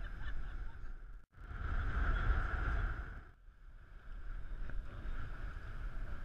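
Wind and boat noise on open water: a steady low rumble with a constant hum above it. It drops out abruptly about a second in and again about three seconds in.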